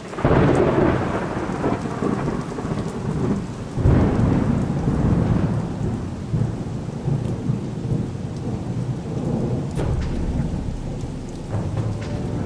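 Thunder rumbling over steady rain: a deep peal at the start and a second one about four seconds in, each fading away slowly.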